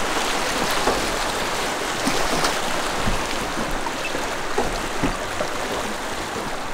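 Fast river current rushing steadily around a drift boat, with a few faint light knocks.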